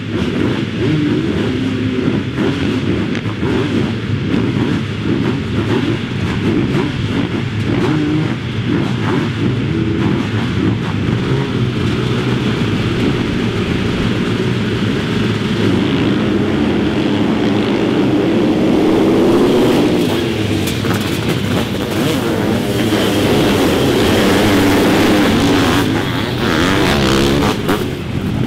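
A grid of sidecar motocross outfits revving their engines together at the start gate. A little past halfway the pack accelerates away in a rising surge of engines, then runs loud and close together.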